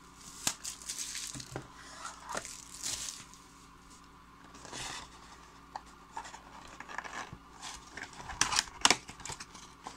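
Cardboard trading-card box and its packaging being torn and pried open by hand: a string of short rips, scrapes and rustles, loudest about eight and a half seconds in.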